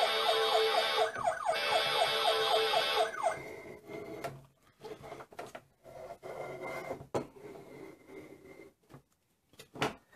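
Electronic siren sound effect from a Mighty Wheels battery-powered toy fire truck's built-in speaker: a fast pulsing siren that breaks off briefly and then cuts out about three seconds in. After it come quieter rubbing and a few clicks as the plastic toy is handled on a wooden table.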